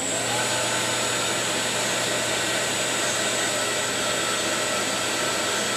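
JMT HBA330 automatic horizontal metal-cutting band saw starting up and running steadily as it cuts a square metal tube: a whine rises as it spins up at the start, then holds as an even hum and hiss under a high steady whistle.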